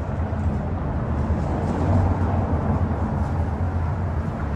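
A car driving toward the camera through a concrete tunnel over a gravel floor: a steady low engine drone with tyre noise, getting louder about two seconds in.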